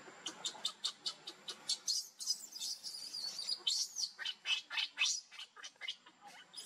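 Newborn macaque crying: a rapid run of short, high-pitched squeaks, several a second, some sliding up and down in pitch.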